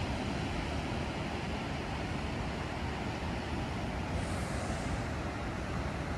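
Surf washing over rocky ledges on the Atlantic shore, with wind buffeting the microphone in a steady low rumble.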